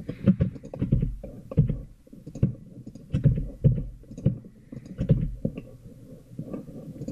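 Computer mouse clicks and keyboard taps, irregular and a few a second, heard mostly as dull low thumps.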